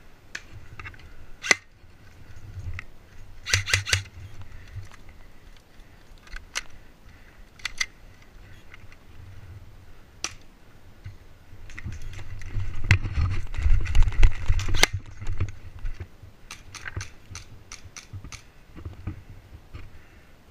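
Airsoft guns firing: scattered sharp snaps, several in quick clusters. In the middle there is a louder stretch of rumbling movement and handling noise on the body-worn camera.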